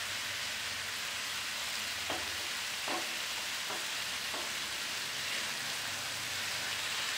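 Kway teow noodles with oysters and egg sizzling steadily in a hot oiled non-stick wok. A silicone spatula turns them in four short strokes between about two and four and a half seconds in.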